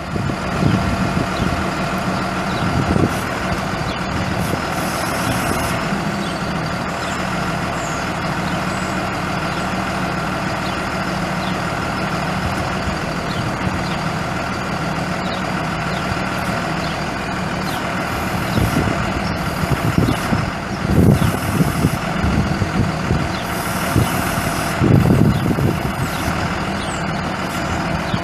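Cummins ISB 5.9-litre six-cylinder turbo diesel of a Ford F650 medium-duty truck idling steadily, with a few brief louder low rumbles near the end.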